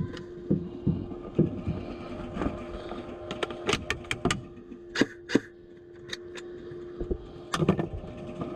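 Scattered sharp cracks of airsoft gunfire and BBs striking nearby, coming irregularly with a quick cluster in the middle and another near the end, over a steady low hum.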